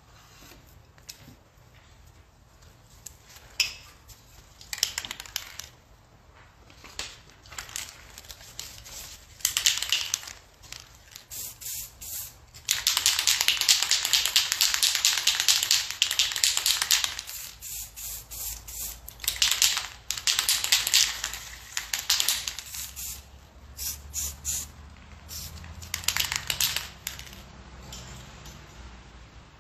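Aerosol spray paint cans hissing in short spurts, with one long steady spray of about four seconds near the middle.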